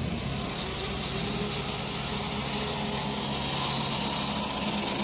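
Zip-line trolley pulley running along a steel cable, a steady whirring hum with a hiss over it.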